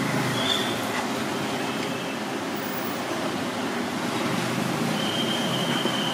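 Steady rumble and hiss of street traffic, with a thin high squeal starting about five seconds in.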